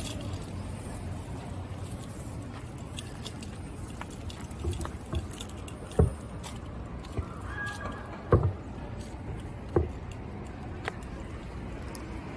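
Steady low rumble with three soft thumps in the second half and light jingling, from two leashed dogs being walked and the handheld camera moving with them.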